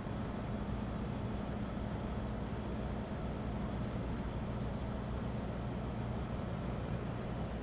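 Steady inside-the-cabin noise of a 2009 Land Rover Defender 90 driving along a motorway: its Ford Puma diesel engine running with a low, even hum, under tyre and road noise.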